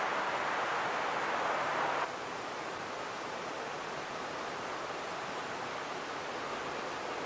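Steady rushing wind noise outdoors, with no distinct events; about two seconds in it drops abruptly to a quieter, thinner hiss.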